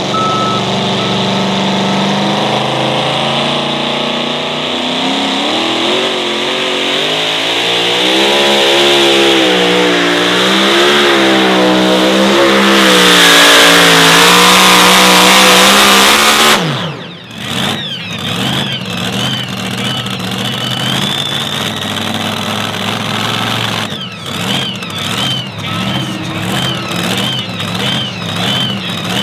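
Supercharged engine of a modified two-wheel-drive pulling truck running flat out under load while pulling a sled, its pitch wavering up and down as the truck bounces down the track. About two-thirds of the way through, the revs fall off sharply as the pull ends, and the engine carries on running much lower and quieter.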